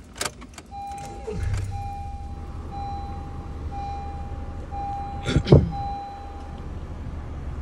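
A Honda Civic's four-cylinder engine is push-button started about a second and a half in and settles into a steady idle. The dashboard warning chime beeps steadily, about one beep a second, for most of the stretch, and a single loud knock comes about five seconds in.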